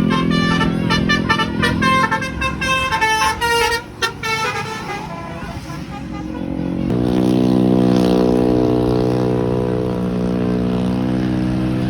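Indonesian bus 'telolet' musical horn playing a quick run of changing notes for about four seconds, over a low steady drone. After a short lull, a steady horn chord sounds from about seven seconds in and is held for about five seconds.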